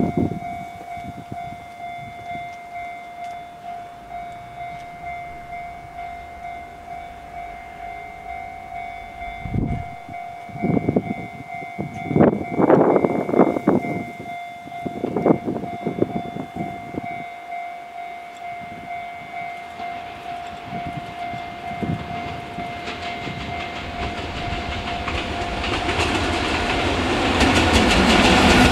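Freight train headed by two EF64 1000-series electric locomotives hauling tank wagons, approaching from a distance. A few loud horn blasts come midway, then a growing rumble and rail noise as the locomotives draw close near the end. A steady pulsing tone runs through the first two-thirds and stops.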